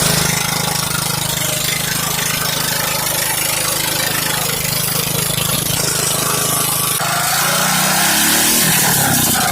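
Lawn mower engine running through a new muffler, steady for about seven seconds, then its pitch climbs and wavers as it is revved up.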